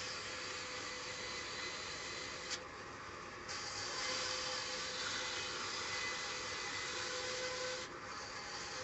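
Sawmill band saw running and ripping a wooden beam into planks: a steady hiss of the blade cutting through the wood over the hum of the machine. The hiss drops for about a second, around three seconds in and again near the end, as the cut finishes and the next pass begins.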